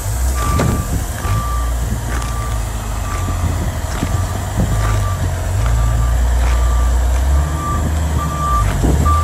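Forklift reversing alarm beeping steadily, a bit more than one beep a second, over the deep drone of its engine, which swells and eases as it works.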